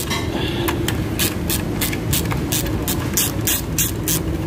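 Ratchet wrench worked back and forth in quick, even strokes, about four a second, clicking as it tightens the bolt of a clutch alignment tool to centre the clutch disc. A steady low hum runs underneath.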